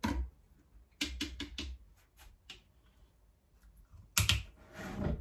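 Clicks and knocks of a lid being worked onto the mouth of a glass canning jar full of tomatoes, ready for draining the liquid. There is a quick run of small clicks about a second in and two louder knocks near the end.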